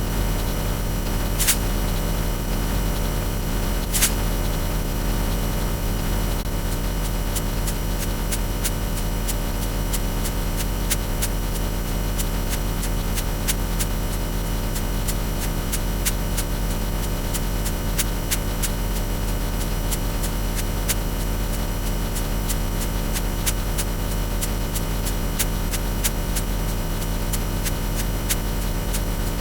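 Loud, steady electronic hum with a haze of static. Sharp clicks crackle through it, a few at first and much more often from about six seconds in.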